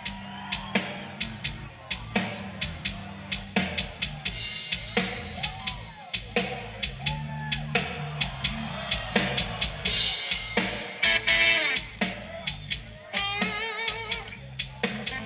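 Live hard rock band playing: a driving drum-kit beat with sharp snare and bass-drum hits under electric guitar.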